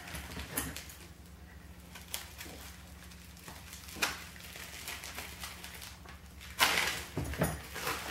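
Plastic sleeve around a rolled sticker sheet being handled and pulled open: a few faint rustles and taps, then a burst of plastic crinkling lasting about a second near the end. A low steady hum sits underneath.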